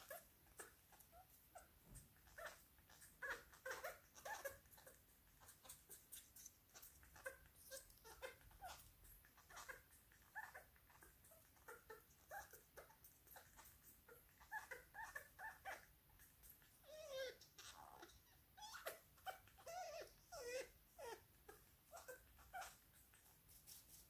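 Senegal parrot making soft, whimper-like squeaks and short chirps, a rapid string of small calls throughout, mixed with short sharp clicks.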